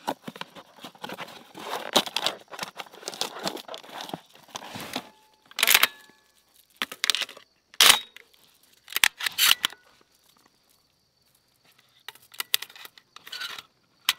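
Cardboard box of shotgun shells being torn open and rustled for about five seconds, then a string of separate sharp clicks and clacks as shells are pushed into the shotgun's loading port and magazine.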